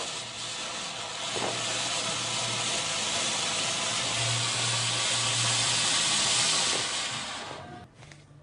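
Firework fountain spraying sparks with a steady, loud hiss that dies away quickly near the end as it burns out.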